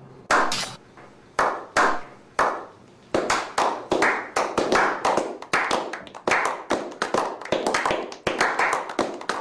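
A small group of people clapping: a slow clap of single, spaced-out claps that about three seconds in fills out into quicker, overlapping applause from several pairs of hands.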